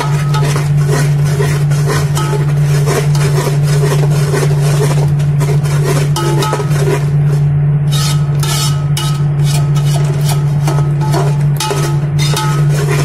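A spatula stirring and scraping in a pan as the onion, ginger-garlic and whole-spice masala is fried, in many short strokes over a loud steady low hum.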